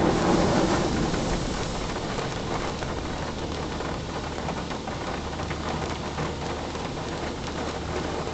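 Water from a Coleman Hanna Water Wizard touchless car wash spraying onto the car's body and windows, heard from inside the car as a dense hiss of droplets over a steady low hum from the machine. The spray is loudest for about the first second, then eases to a steady level.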